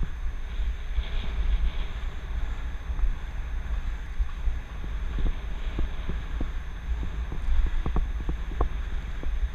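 Wind buffeting a helmet-mounted GoPro's microphone while cycling along a paved path: a steady low rumble. Scattered light clicks and rattles come in over the second half.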